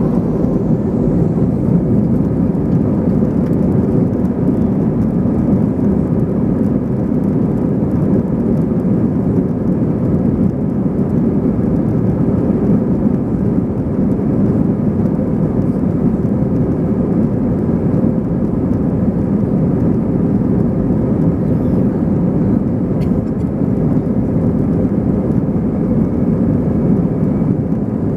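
Steady cabin noise inside an Airbus A321ceo climbing out after takeoff: engine and airflow noise, deep and even, with a faint steady hum riding on it.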